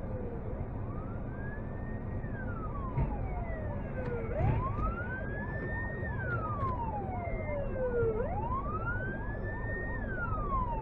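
Fire-engine sirens wailing in a slow rise and fall, about one sweep every four seconds, with a second siren slightly out of step, over low traffic and engine noise.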